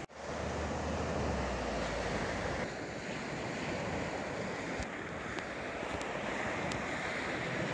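Small waves washing onto a sandy beach, a steady hiss of surf, with wind rumbling on the microphone for the first couple of seconds.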